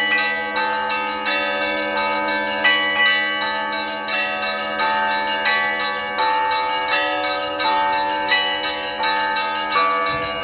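Russian Orthodox church bells ringing to call the faithful to a service. Several bells of different pitches are struck in quick, continuous succession over the steady hum of a deep bell.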